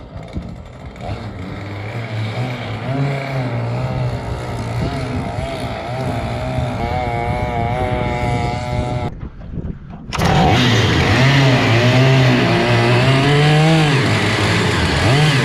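Stihl 088 two-stroke chainsaw engine driving a longtail propeller, its revs rising and falling unevenly as it labours against a propeller the builder finds too aggressive for it. It is heard from a distance at first, then much louder and close up after a break about ten seconds in.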